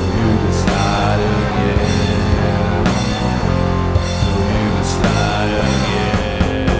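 A rock band playing an instrumental passage of a demo recording, with guitar, bass and drums and no singing.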